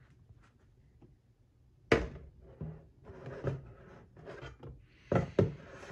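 Knocks and clunks of a Pro Boat Veles 29 RC catamaran hull being set onto and shifted about on a metal RC boat trailer: one sharp knock about two seconds in, a run of smaller clunks, then two sharp knocks close together near the end.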